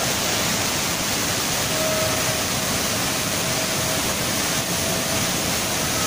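Flash-flooded river of muddy water rushing past in a steady, unbroken roar of turbulent water.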